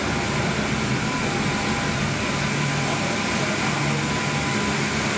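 Steady running noise inside a moving mountain passenger car: an even rushing hiss over a low hum, with a faint steady whine.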